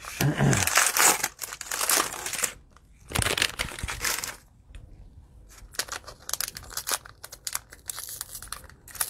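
Plastic wrapper of a 2020 Prizm football cello pack crinkling as it is torn open and handled. There are two loud crinkly stretches in the first half, then quieter crinkles and small ticks.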